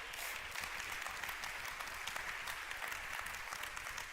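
Congregation applauding, many hands clapping at a low, steady level.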